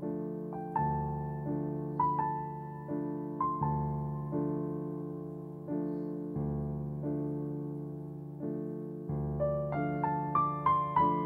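Slow, gentle piano music: notes and chords struck about once a second and left to ring, with a quicker run of rising higher notes near the end.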